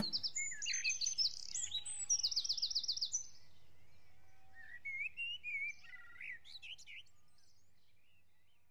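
Birds chirping and singing, with rapid trills and whistled glides. The calls are busiest in the first three seconds, then grow sparser and fade away near the end.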